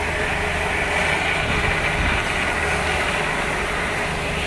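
Steady drone of a running vehicle, with a faint steady tone and no changes in level.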